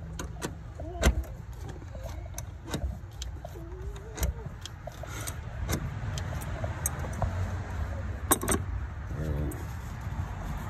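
Scattered metallic clicks, clinks and knocks of engine-bay parts being handled and twisted by hand, at an uneven pace, with a sharper knock about a second in and a quick cluster of clicks near the end.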